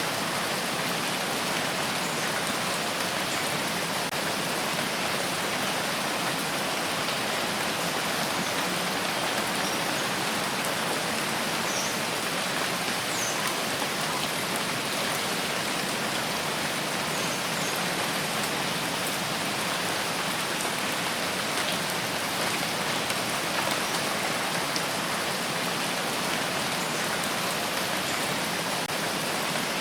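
Steady rain falling, an even hiss of many drops with a few faint separate drop ticks now and then.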